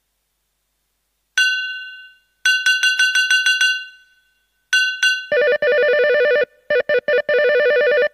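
Casio CT-X700 keyboard's telephone sound-effect tones. After a moment of silence there is a single bell-like strike, then a fast run of about eight strikes a second like an old telephone bell. Then comes an electronic warbling phone ring that starts and stops in short bursts.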